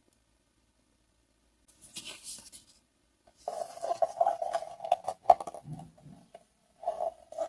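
Handling noise from small objects being worked by hand: a brief scratchy rustle, then a couple of seconds of scraping and rubbing with a squeaky tone and a few sharp clicks, and one more short squeak near the end.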